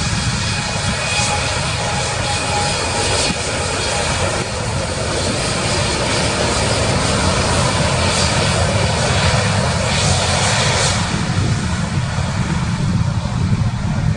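Airbus A350's Rolls-Royce Trent XWB turbofan engines running as the airliner rolls along the runway: a loud, steady jet engine noise with a deep rumble underneath, swelling a little in the middle.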